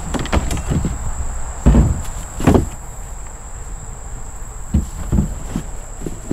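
Insects trilling in a steady high-pitched chorus, with several knocks and thumps over it, the loudest two about two seconds in and smaller ones near the end.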